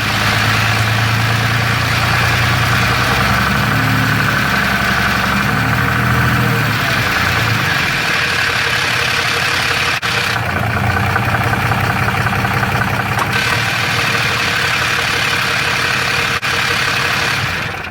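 6.7L Cummins diesel in a Dodge Ram idling, with a rattle like marbles in a can from its DPC triple-disc torque converter. This noise is believed to be normal for the triple-disc design.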